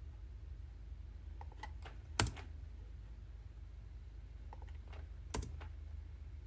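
Keystrokes on a computer keyboard as code is typed: two short bursts of clicks about three seconds apart, each ending in one louder key press. A steady low hum runs underneath.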